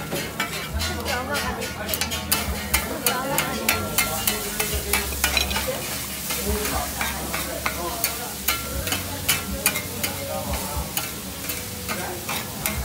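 Metal spatulas chopping and scraping monjayaki on a hot iron griddle: rapid, irregular clicks and scrapes of metal on metal over the sizzle of the frying batter and vegetables.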